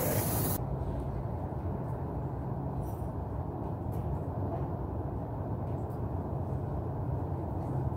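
Airbrush air hiss that cuts off abruptly about half a second in, followed by a steady low rumble with a few faint clicks.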